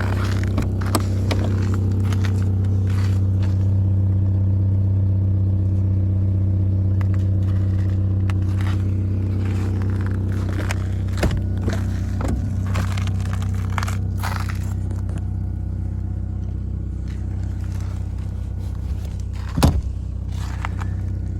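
Mercedes-Benz W202 C180's four-cylinder petrol engine idling steadily, with irregular short squeaks and scraping from the alternator, a noise that shows up only while the engine is cold. There is one sharp knock near the end.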